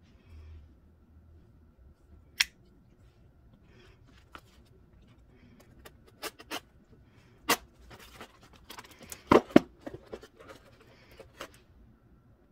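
A knife blade cutting open a cardboard shipping box: a few sharp clicks and snaps, then scratchy slicing and scraping through the cardboard and tape in the second half, with the loudest snaps in the middle of it.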